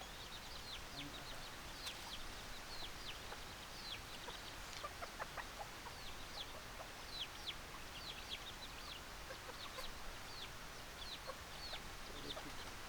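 Chicks peeping: many short, high chirps, each falling in pitch, coming steadily several times a second.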